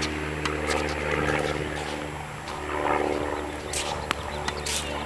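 A steady low engine drone with a pitched hum, which eases off briefly about halfway through, with a few sharp pops of tennis balls being struck and bounced on a hard court.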